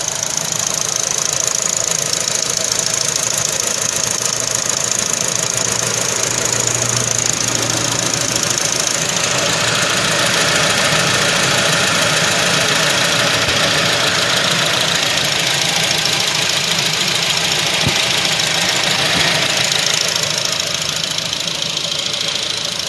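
Honda K20Z3 2.0-litre four-cylinder engine idling steadily just after a timing chain replacement, growing a little louder about nine seconds in and easing back near the end. The owner hears no knocking or rattling: the new chain is running without problems.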